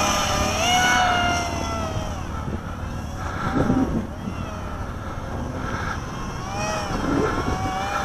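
MIA EZ 1.0 RC autogyro's motor and propeller whining in flight, the pitch slowly rising and falling, growing fainter over the first couple of seconds. Wind buffets the microphone underneath.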